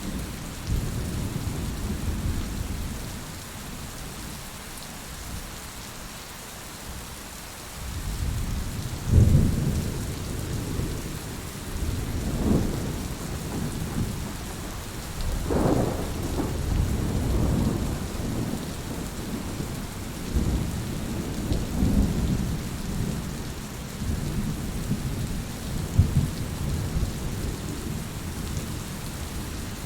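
Heavy rain falling steadily with rolling thunder: a quieter stretch early on, then several low rumbles swelling and fading from about a third of the way in.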